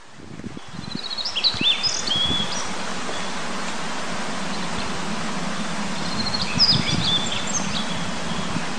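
Male Daurian redstart singing two short phrases, about a second in and again about six seconds in, each a quick run of high repeated notes followed by a few down-slurred whistles. Under it runs a steady rush of a mountain stream and wind, with low gusts of wind on the microphone early on.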